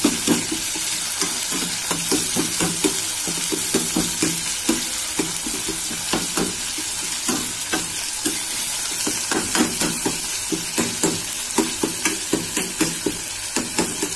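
Onions and tomatoes frying in oil in a metal wok with a steady sizzle, while a metal spoon stirs them, knocking and scraping against the pan a few times a second.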